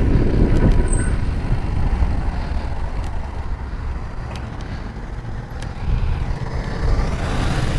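Wind rumbling on the microphone during a bicycle ride, with a few faint clicks; the rush swells and brightens near the end.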